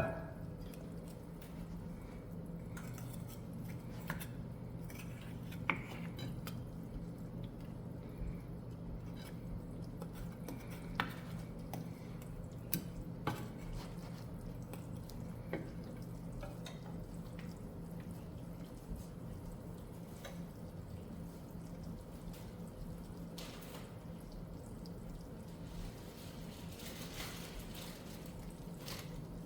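Kitchen handling sounds: scattered light clicks and clinks of dishes and utensils over a steady low hum, with the sharpest click at the very start. Part of the hum cuts out about halfway through.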